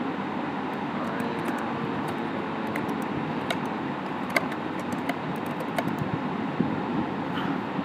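Computer keyboard keys clicking in an irregular string as a sentence is typed, over a steady background hiss and rumble.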